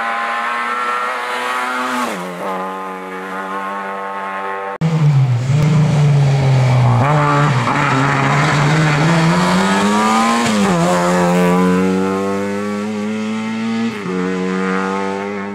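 Lada 2105 rally car's engine running hard under load, the revs climbing and dropping through gear changes. About five seconds in the sound cuts abruptly to a louder, deeper engine note.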